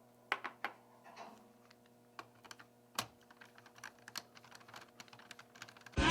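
Small irregular clicks and ticks of a screwdriver working the screws out of a Dell XPS M1710 laptop's lower shell, with a few sharper clicks near the start and one about three seconds in.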